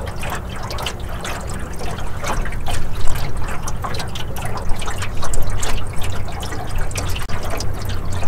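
Small waves lapping and splashing against the side of a jon boat's hull, in irregular short slaps, over a steady low rumble.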